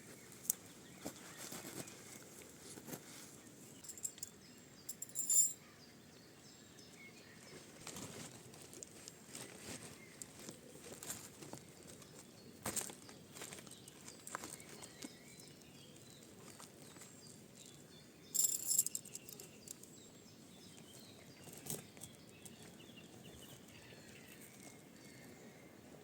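Quiet outdoor ambience with scattered small clicks and rustles, and two short bright high-pitched bursts, about five seconds in and again about eighteen seconds in.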